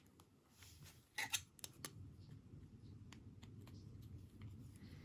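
Faint plastic clicks and rubbing as a trading card is handled with a clear rigid plastic card holder, with a cluster of sharper ticks between one and two seconds in.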